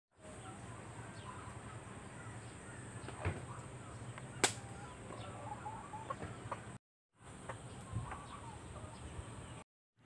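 Faint scattered bird calls over a low steady hum, with two sharp knocks, the louder one about four and a half seconds in. The sound cuts out to silence twice, briefly.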